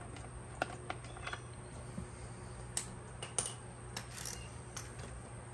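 Light, irregular clicks and taps of a small socket ratchet and plastic push-pin fasteners being worked loose, about ten sharp ticks spread unevenly.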